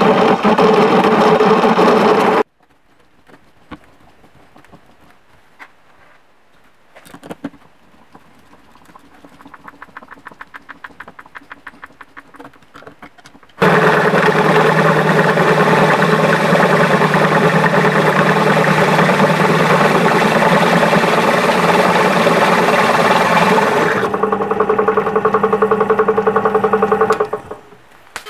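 Experimental 50cc two-stroke engine on its first test-fire, running in bursts. It runs steadily, then cuts off suddenly about two seconds in, followed by faint ticking that quickens. It catches again about fourteen seconds in and runs steadily for about ten seconds, then drops to a weaker, uneven note and dies shortly before the end.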